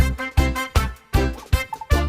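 Upbeat instrumental background music with a bouncy, swing-like beat, about two beats a second.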